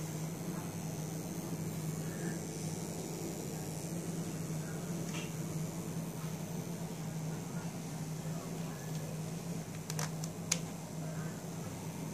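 Seasonic M12II EVO 520W power supply in a running PC making its unwanted noise: a steady low hum with a faint high whine over it. Two sharp clicks come about ten seconds in.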